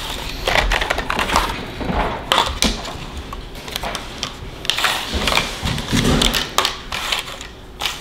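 Clear plastic clamshell wax-melt molds being pulled apart and set down on a stone countertop: a quick irregular run of light plastic clicks and clacks with crinkling in between.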